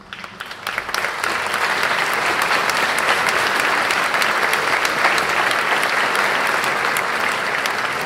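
A large audience applauding, building up over the first second and then holding steady.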